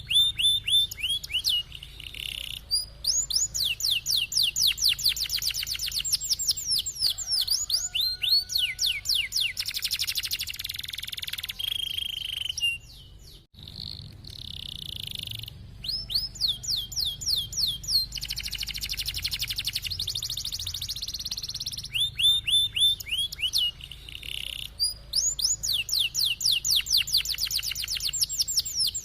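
Domestic canary singing a long, loud song of rolling trills, each made of rapid repeated notes sweeping downward, alternating with steadier buzzy passages. The song breaks off briefly about halfway through.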